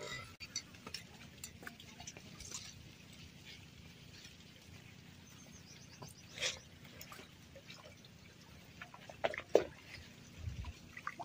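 Faint lakeshore ambience: light water lapping against rocks, with a few scattered small clicks and knocks.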